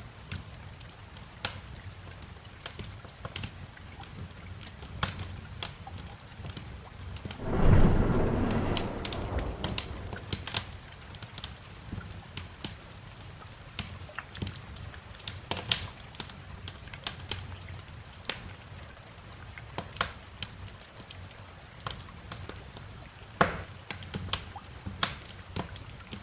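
Wood fire crackling with sharp pops scattered throughout, over steady rain. About eight seconds in, a roll of thunder rumbles loudly and dies away over a few seconds.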